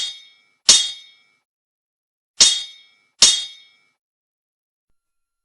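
Metallic clang sound effects: sharp strikes with a short ringing tail, coming in two pairs, the strikes in each pair under a second apart.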